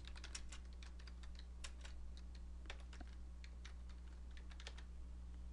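Computer keyboard being typed on: a run of faint, quick key clicks over a low steady hum.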